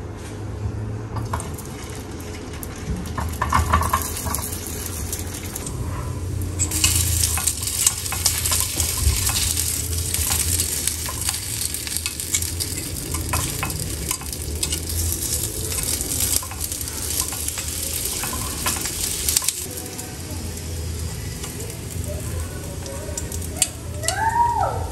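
Rice-cake sticks sizzling in hot oil in a small square frying pan. The sizzle starts about a quarter of the way in and dies down a few seconds before the end, with metal tongs clicking against the pan as the pieces are turned.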